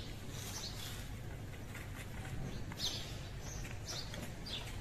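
Small birds chirping now and then, with short high chirps that drop in pitch, over a steady low outdoor background rumble.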